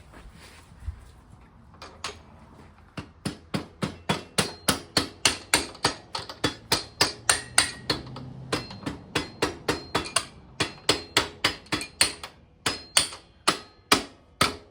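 Hammer blows on a metal socket extension, driving the rear axle bolt out of a 1976 Honda CJ360 motorcycle's wheel. The strikes start about two seconds in and go on evenly, three to four a second, each with a short metallic ring.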